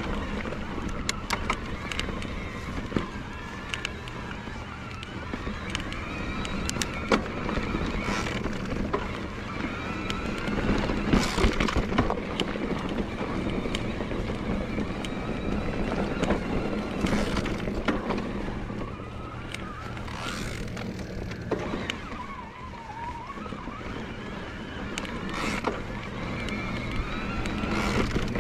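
Bosch Performance Line CX mid-drive motor of an e-mountain bike whining under load on a climb, its pitch wavering up and down with the pedalling. Tyre noise on the dirt trail and scattered sharp clicks and knocks from the bike on rough ground run underneath.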